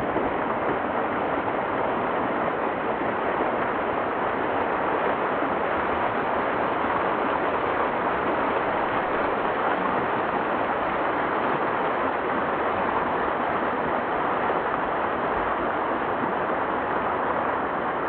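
Small waterfall spilling down a steep rock face: a steady, even rush of falling water.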